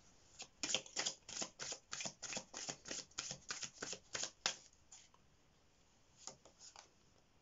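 A deck of oracle cards being shuffled by hand: a quick run of crisp card flicks for about four seconds, then a short pause and a few softer clicks as the cards are handled.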